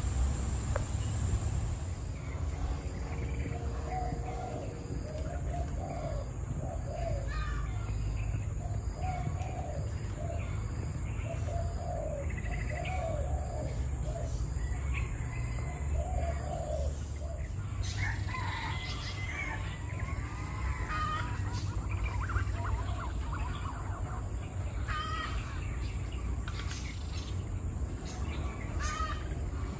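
Wind rumbling on the microphone with birds calling over it: a short, low call repeated about once a second through the first half, then higher chirps and twitters from a little past halfway.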